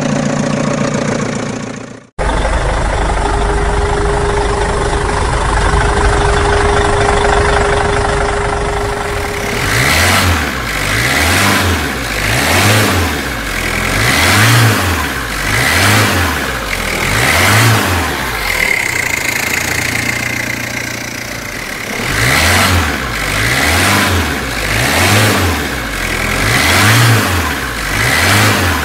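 Engine sound effect of a heavy vehicle: a steady engine rumble, then from about ten seconds in a revving that surges and falls back about once a second.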